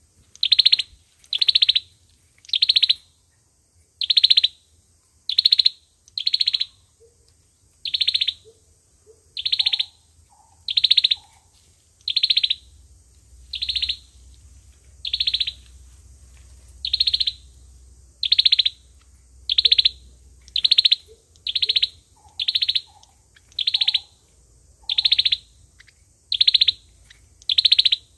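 A sâu dừa bird calling, repeating one sharp high note about once a second, each note dropping in pitch. This is the call played as a lure to trap the species.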